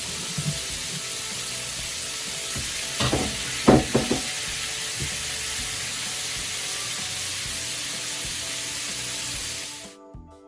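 Chicken pieces frying in a skillet: a steady sizzle, with a few knocks about three and four seconds in. The sizzle cuts off suddenly near the end and music takes over.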